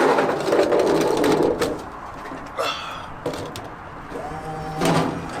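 Driving-range golf-ball dispenser running with a mechanical rattle, loudest in the first second and a half, followed by a sharp knock near the end.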